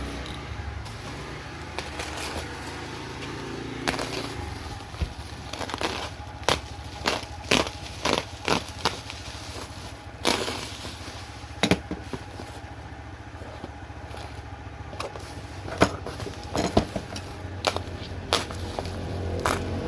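Packaging being handled during an unboxing: a string of sharp clicks, crackles and crinkles, over a steady low rumble.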